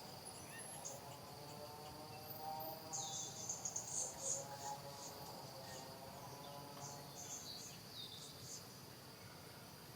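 Insects droning steadily at one high pitch, with clusters of short, high chirps about three to four and a half seconds in and again near eight seconds, over a faint lower hum.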